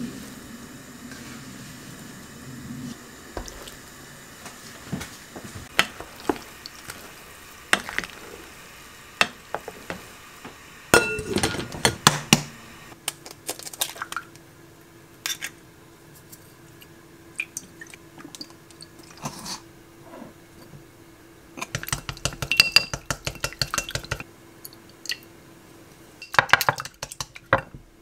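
Kitchen utensils clinking and tapping against dishes and bowls during meal preparation. Scattered single clinks are broken by a few short runs of quick, rapid clicks.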